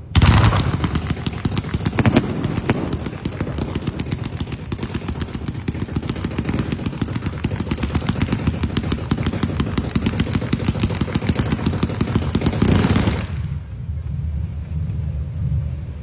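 Firecrackers going off in rapid, continuous succession, a dense run of sharp bangs that stops abruptly about 13 seconds in.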